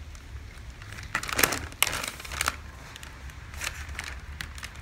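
Sheets of dotted pattern paper rustling and crinkling in a series of short bursts as hands smooth and shift them on a table.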